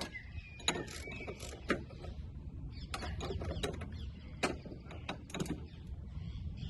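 Hand tools working the strut brace's mounting nuts and bolts: a run of irregular metallic clicks and clinks as the fasteners are turned and tightened.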